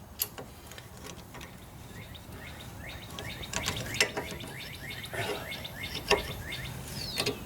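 Birds chirping in short falling notes, with a few sharp metal clicks as a C-clamp is set against the brake caliper to push the piston back.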